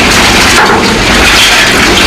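Industrial shredder crushing and tearing through hard material: loud, continuous grinding and cracking.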